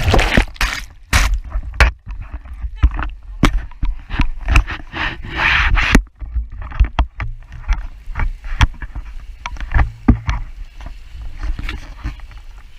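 A boat moving through choppy water: water splashing and slapping against the hull in many irregular sharp knocks, with two longer rushes of spray, over a steady low rumble.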